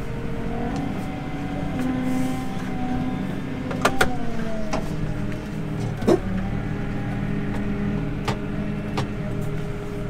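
Tractor engine running at reduced throttle, heard inside the cab, while the hydraulic linkage lifts the plough out of the ground at the headland. Its note dips about four seconds in, and a few sharp clunks come around four and six seconds in.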